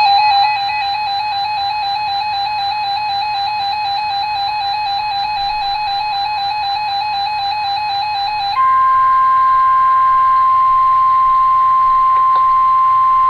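Weather radio alert: a rapidly warbling electronic alarm beep for about eight and a half seconds. It then switches to the steady 1050 Hz NOAA Weather Radio warning alarm tone, which holds to the end and announces a warning message.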